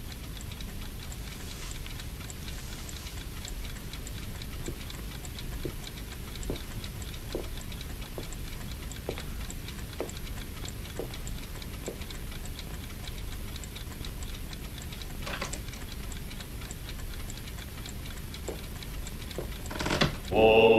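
A clock ticking steadily, with slow footsteps about a second apart from about five to twelve seconds in and twice more near the end. A sound swells up in the last second.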